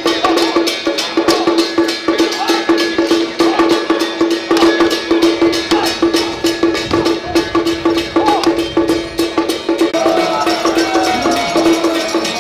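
Drum-and-gong percussion accompanying a Song Jiang martial troupe: a fast, even beat of sharp strokes over a steady ringing tone. From about ten seconds in, higher wavering tones, such as voices, rise above it.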